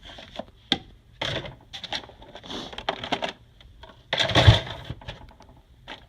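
Plastic Tupperware containers and lids clacking and rattling against each other as they are handled and sorted, with a louder clatter about four seconds in.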